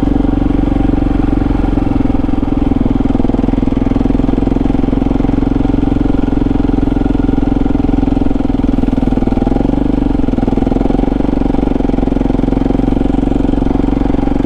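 KTM 640 Adventure R's single-cylinder four-stroke engine running at steady, moderate revs while the bike is ridden, with a slight dip in the lower notes about ten seconds in.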